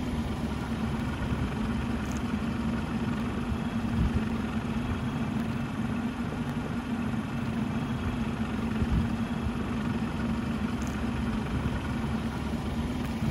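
Car engine idling steadily, an even low hum with a constant rumble.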